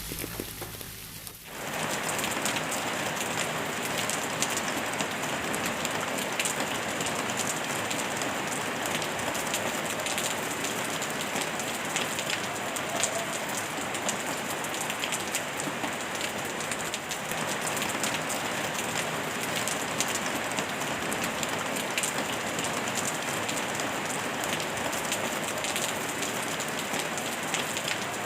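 Steady heavy rain: an even hiss with a dense patter of drops, layered with pink noise. It comes in abruptly about a second and a half in, after a brief quieter stretch.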